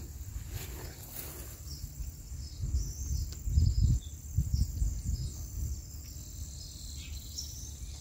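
Insects chirring steadily in a high, even drone in grassy countryside, with some low rumbling bumps near the middle.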